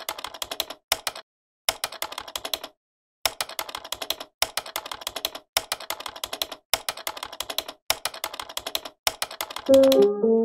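Typewriter keys clicking in quick runs of strokes with short pauses between. Brass-led music comes in just before the end.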